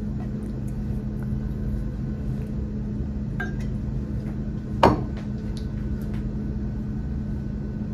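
A steady low hum of electrical equipment with two even tones, and a single sharp knock about five seconds in as a stainless steel travel mug is set down on a desk.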